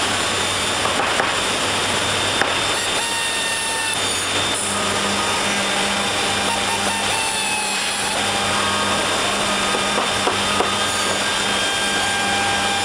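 CNC router machining a timber blank, running steadily with a low hum and short whining tones that come and go, a second lower hum joining about a third of the way in. A few light clicks sound over it.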